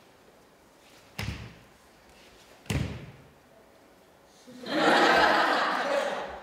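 Two sharp thumps about a second and a half apart, hands or bodies striking a table in a physical-theatre routine, then a louder rushing hiss lasting about two seconds that ends in another sharp thump.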